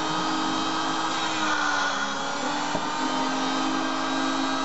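Auto lens groover running with a steady motor whine as its grooving wheel nicks a trial groove in a lens edge to check the groove's centering; the pitch sags slightly about a second in, and there is a single short click a little before three seconds in.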